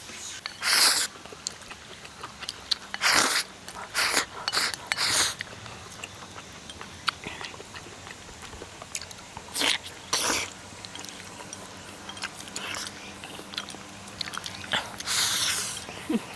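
A person biting and chewing soft red-braised pork knuckle, in irregular short bursts of wet mouth sounds.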